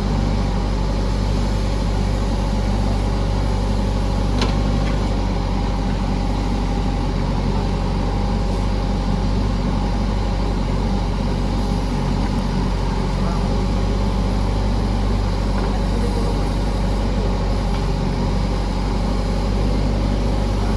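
JCB backhoe loader's diesel engine running steadily under work, with a brief click about four and a half seconds in.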